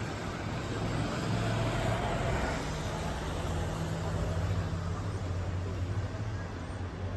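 Road traffic on a city avenue: a motorcycle passes below, its sound swelling about two seconds in, over a steady low engine hum.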